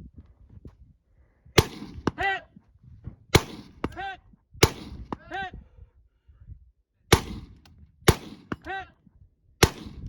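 Six rifle shots at uneven intervals, most followed about half a second later by the ringing ping of a steel target being hit downrange.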